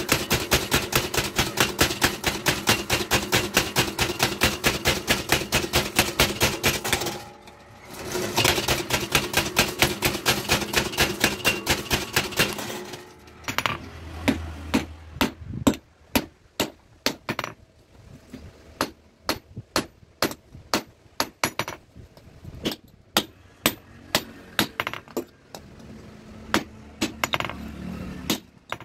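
Motor-driven power hammer pounding a red-hot steel adze (bashula) head in a rapid, steady rhythm, with a short pause about seven seconds in and a stop about thirteen seconds in. After that, a hand hammer strikes the hot metal on an anvil in slower, irregular blows.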